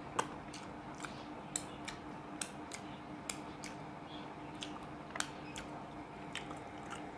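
Close-up eating with the fingers: rice and fish curry chewed with a string of sharp, wet mouth clicks and lip smacks, a couple a second, over a faint steady hum.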